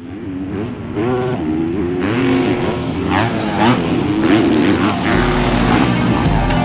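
Dirt bike engines revving, the pitch climbing and dropping again and again as they rev up and back off. The sound fades in at the start.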